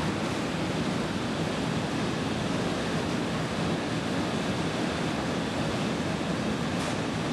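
Potato-handling farm machinery running with a steady, even rushing noise.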